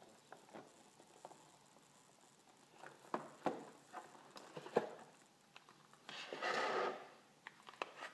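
Clear plastic lid being handled on a cardboard box: a few sharp taps and clicks, then a rustling scrape lasting about a second as the lid slides off, followed by a couple more clicks.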